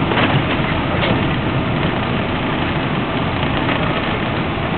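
Steady jet airliner cabin noise heard from inside the plane: engines running and air rushing as the aircraft rolls along the ground after landing.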